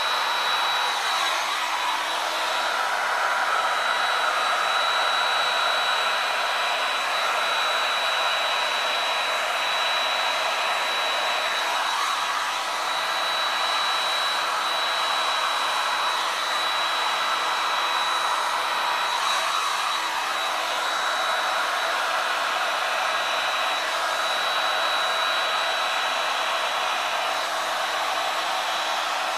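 DeWalt heat gun running steadily, its fan blowing a constant rushing stream of air with a thin high whine, used to push wet acrylic paint across a canvas.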